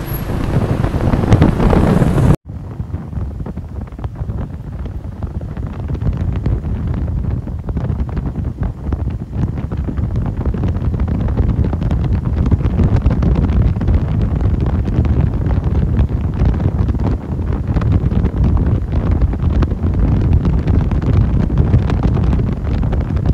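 Wind rumbling on the camera microphone of a moving motorcycle, a loud, low rush of airflow. For about the first two seconds a brighter street-traffic sound is heard instead, and it cuts off suddenly.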